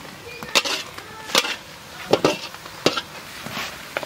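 A metal ladle knocking against a steel cooking vessel several times: sharp, irregular clanks, some with a brief metallic ring, as fried prawns are tipped and shaken off onto the tray.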